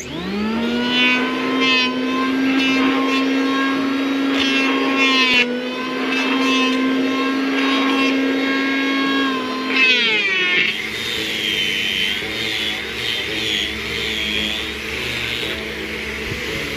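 Electric hand planer (Maktec) spinning up, then running steadily while it shaves coconut-palm wood, and spinning down about ten seconds in. After that a higher, wavering whine of another power tool runs on.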